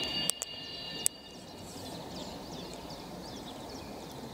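A few sharp clicks in the first second, then small birds chirping over a steady low outdoor hum.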